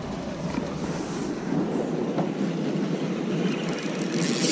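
Handling noise of an angler stepping on a boat deck and cranking a spinning reel on a hooked fish: a steady low clatter that grows slightly louder, with a short hiss near the end.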